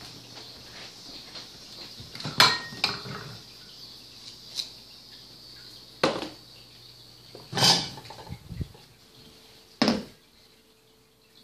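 Several sharp knocks and clinks of dishes being handled, spaced a second or two apart. Near the end a bowl is set down on a tile floor with a short knock.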